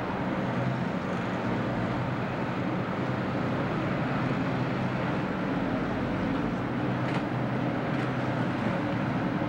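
A large ship's machinery running with a steady low hum under a broad rushing noise while the ship is being moored.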